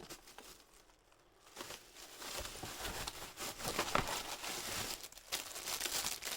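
Packaging crinkling and rustling as it is handled and opened, starting about a second and a half in after a few light clicks.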